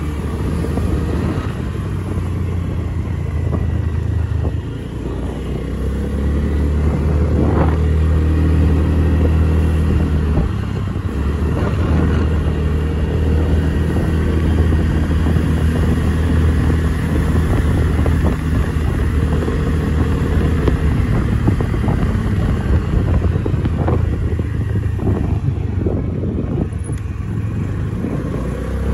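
A motorcycle engine running steadily during a ride in city traffic, its pitch shifting now and then with the throttle. A few brief sharp sounds come through, once early and once near the end.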